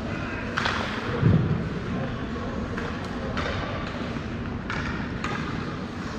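Ice hockey play in a rink: several short scrapes of skates and sticks on the ice and a dull thump about a second in, over the rink's steady background noise.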